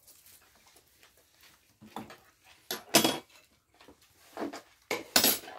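Spoons and dishes clinking and clattering as people eat, in a few separate short bursts, the loudest about three seconds in and another near the end.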